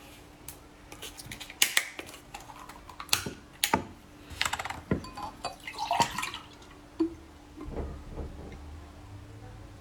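Close-miked drinking sounds: a person sipping and gulping juice, with sharp wet mouth clicks and short slurps that come thickest in the first two-thirds. A faint steady hum runs underneath.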